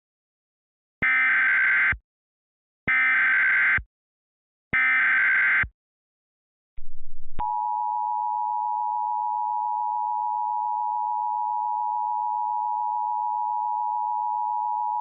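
Emergency Alert System tones: three SAME header bursts of screeching data, about a second each, then a short low buzz and the steady two-tone attention signal held for about eight seconds.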